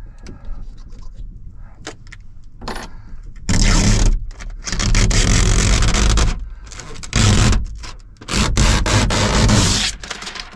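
Dark window tint film being peeled off the glass of a truck topper's rear window: loud, crackling rips in four long pulls, the first about three and a half seconds in.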